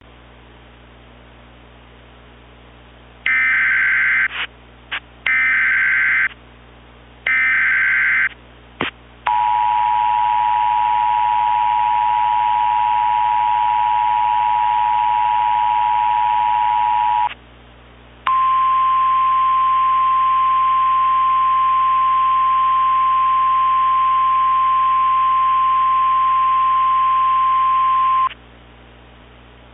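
Emergency Alert System tones for a flash flood warning. Three short bursts of SAME digital header data come a second apart, then the two-tone EAS attention signal holds for about eight seconds. After a brief pause, the single-pitch NOAA Weather Radio warning alarm tone holds for about ten seconds.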